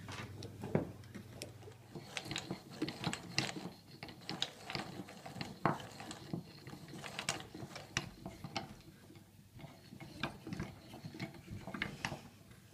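Hand-cranked wooden cam toys in operation: irregular clicking and knocking of the wooden cams, followers and axle as the crank is turned.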